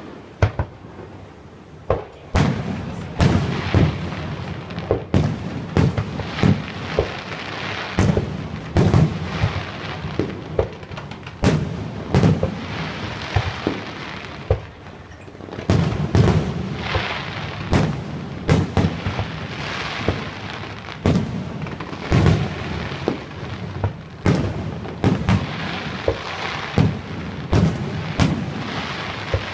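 Fireworks display: aerial shells bursting in quick, irregular succession, one or two booms a second with a continuous crackle between them.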